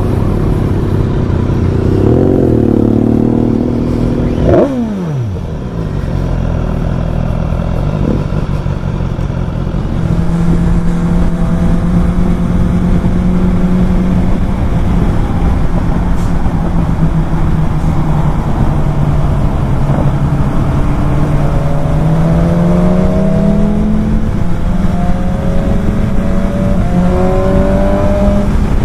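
Motorcycle engine and wind noise heard from the rider's own bike: pulling away slowly, with a sharp falling pitch about four and a half seconds in, then cruising at highway speed. Near the end the engine note climbs in steps as the rider accelerates through the gears.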